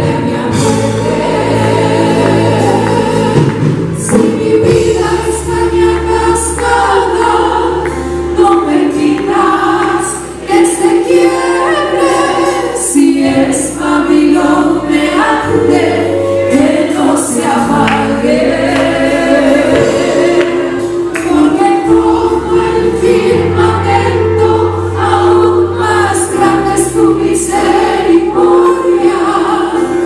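A woman sings a gospel worship song into a handheld microphone, with other voices singing along. A band accompanies her with held low notes that change every couple of seconds and frequent percussion strokes.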